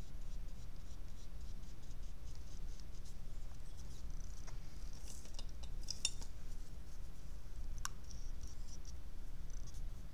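Faint, scattered scratching of a small watercolour brush working on paper and in the pans of a watercolour palette, with one sharp tick about eight seconds in, over a steady low hum.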